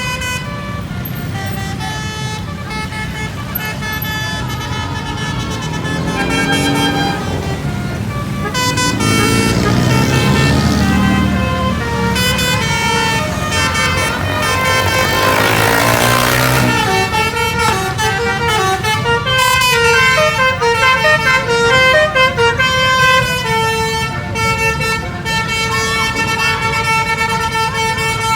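Indonesian bus basuri (telolet) melody horns playing their multi-note tunes in turns, a horn battle between two buses, over bus engines running. Around the middle the sound swells into a louder, noisier stretch with sliding pitches.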